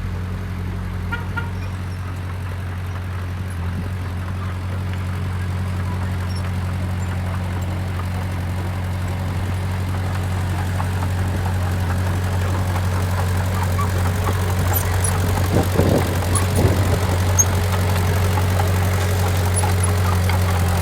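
A heavy earthmoving machine's engine running steadily with a low drone that slowly grows louder. A few knocks come about fifteen to seventeen seconds in.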